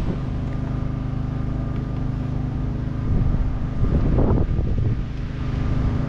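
A motor or engine running steadily with a low, even hum, with a couple of louder rustling swells partway through.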